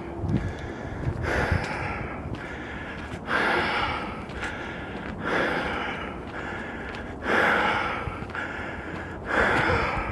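A person breathing hard while walking, with a loud breath about every two seconds and a softer one in between.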